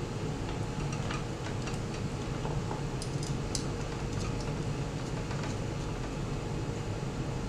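Light clicks and taps of antenna cable connectors being fitted onto a small plastic cellular modem by hand, a few at a time, over a steady low hum.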